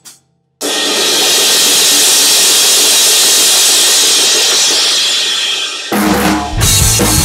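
Drum kit played hard, mostly a loud, sustained wash of crashing cymbals after a brief pause at the start. Near the end the drumming changes and full rock music with a heavy bass line comes in under the regular drum hits.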